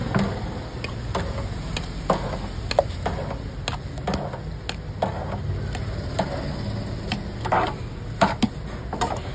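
Steel spoon knocking and clinking against a steel bowl and the rim of a brass pot as chickpea curry is ladled out, in sharp irregular clicks about once or twice a second, over a steady low hum.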